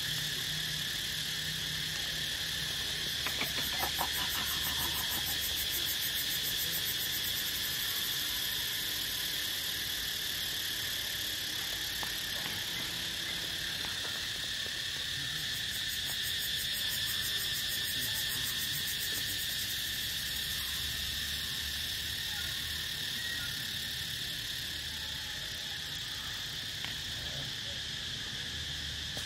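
A steady, high-pitched insect chorus, a drone in two even tones that holds without a break.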